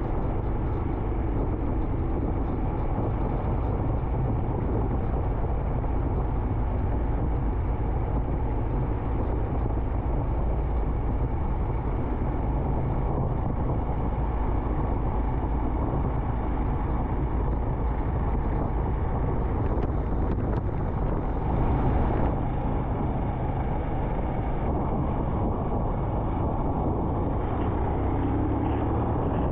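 Royal Enfield Himalayan's single-cylinder engine running steadily at cruising speed, under steady road and wind noise on a wet road.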